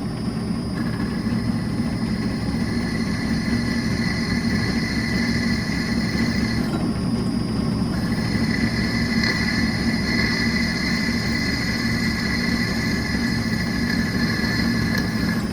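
Variable-speed drill press running steadily, set to about 900 RPM: a low hum with high whining tones over it that drop out for about a second midway and then return.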